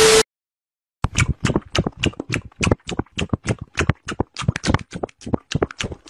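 A brief burst of TV-static hiss with a steady beep cuts off right at the start. After a short silence comes a fast, uneven run of short, wet chomping and smacking sounds, about four or five a second: exaggerated greedy eating.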